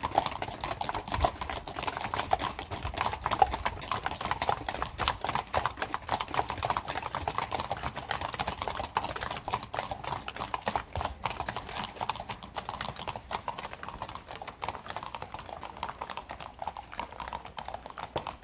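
Hooves of a string of pack mules and saddle horses clip-clopping on asphalt, many footfalls overlapping in an irregular clatter that grows a little fainter near the end as the string moves away.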